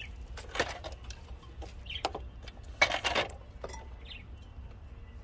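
Light knocks and clatters of ceramic pots and a plastic tray being handled and set down on a table: a few scattered short sounds, the loudest about three seconds in.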